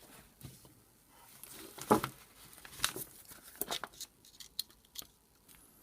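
Scattered light clicks and knocks of parts and tools being handled on a partly disassembled rotary hammer, about half a dozen irregular taps, the loudest about two seconds in.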